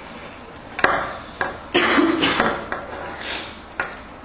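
Handling noise from a headset being put on and adjusted: a sharp click about a second in, a cluster of knocks and rustling around two seconds, and another sharp click near the end.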